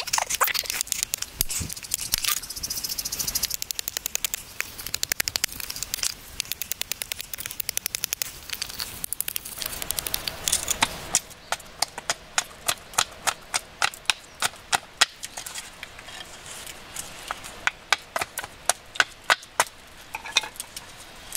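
A broad cleaver-like blade chopping and shaving a stick of wood into a spoon blank on a chopping stump. First comes a quick run of light cutting clicks; from about halfway through, it gives sharper separate strikes about two a second.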